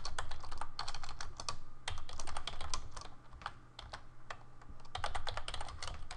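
Typing on a computer keyboard: quick runs of keystrokes, easing off briefly a little past halfway, over a faint steady low hum.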